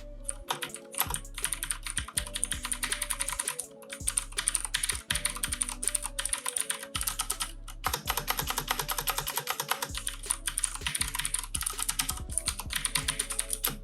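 Fast typing on an XPG Summoner mechanical keyboard with Cherry MX Blue switches: a dense run of sharp, clicky keystrokes with a few brief pauses.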